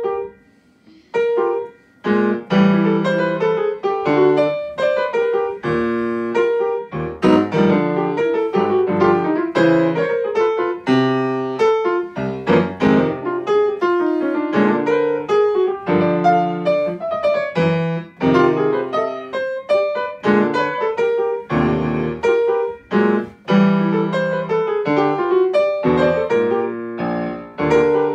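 Grand piano played jazz-style: a short chord right at the start, another about a second later, then continuous playing with bass notes and chords from about two seconds in.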